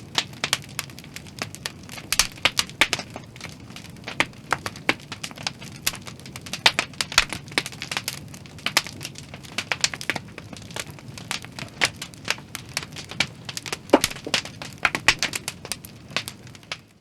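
Irregular crackling and sharp clicks, several a second, over a low steady hum.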